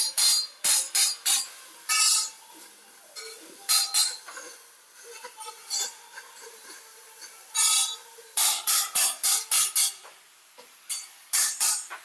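Gas cutting torch cutting steel channel, giving loud hissing blasts in quick runs of about three a second, with quieter spells between the runs.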